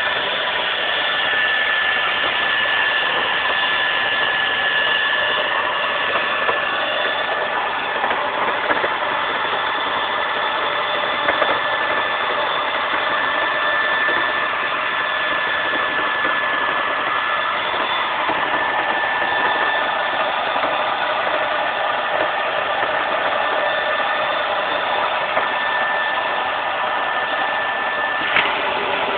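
A carpet-cleaning machine running steadily: a constant rushing machine noise with a high whine over it.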